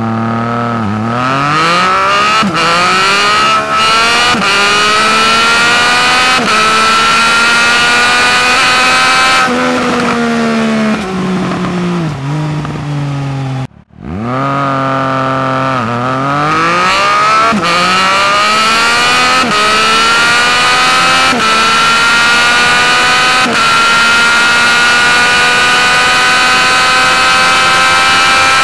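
Triumph Speed Triple RS 1050 cc inline-three engine accelerating hard through the gears, its pitch rising and dropping sharply at each upshift. Partway through, the revs fall back in steps as the bike slows and downshifts. After a brief drop-out about halfway, a second full-throttle run climbs through several more upshifts and settles into a steady high-pitched run at speed.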